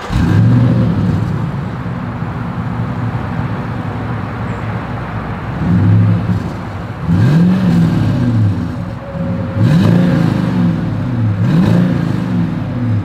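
2022 Toyota Sequoia's 5.7-litre V8 heard from its single exhaust outlet: it idles steadily for about six seconds, then is revved in several short blips that rise and fall in pitch.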